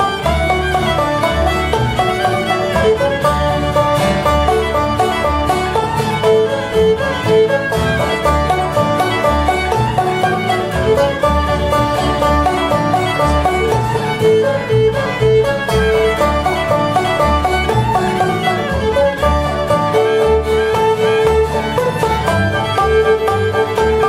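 Old-time string band playing a fiddle tune: fiddle carrying the melody over banjo, upright bass and guitar, with the bass keeping a steady beat.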